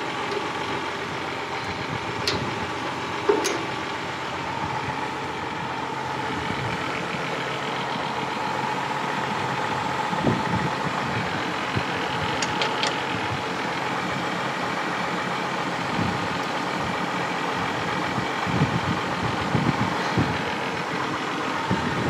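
John Deere tractor's diesel engine idling steadily, with a few sharp metallic clicks from the three-point hitch and top link being connected to a mower.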